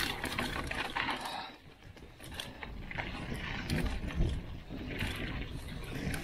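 Mountain bike descending a rocky dirt trail: the tyres roll over dirt and rocks while the bike clatters and clicks over the rough ground. It eases off briefly about a second and a half in, then picks up again.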